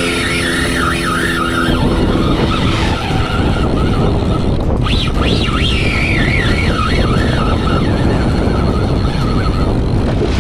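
Heavy wind noise buffeting the microphone over the wash of rough water around a boat, with a wavering high-pitched whine near the start and again in the second half.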